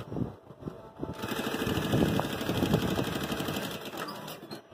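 Industrial sewing machine running, stitching along the edge of a fabric bag flap. It starts up about a second in with a fast, even stitching rhythm and eases off near the end.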